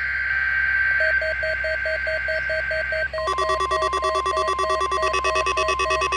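Emergency alert test tones over a weather radio broadcast: a steady high tone over hiss, with rapid electronic beeping starting about a second in. A little past halfway the high tone drops out and a steady lower tone comes in under a denser, layered beeping pattern.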